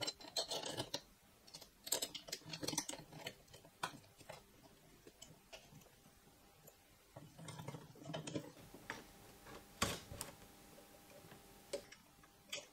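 Scattered light clicks and taps of small metal parts and an Allen key being handled. The strongest tap comes near ten seconds in.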